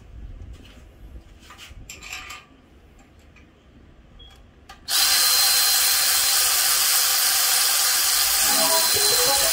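Handheld cordless power tool switching on about five seconds in and running steadily at high speed: a loud, even hiss with a thin, steady high whine in it. Before it, only a few faint clicks of handling.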